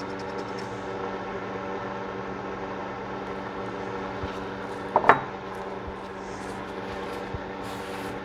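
A steady background hum, with one sharp knock about five seconds in, from gun parts or cleaning tools being handled.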